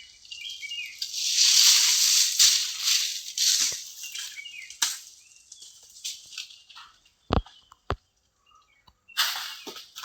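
Rustling, swishing noise in loud bursts, with a few short bird chirps at the start and two sharp knocks about half a second apart past the middle.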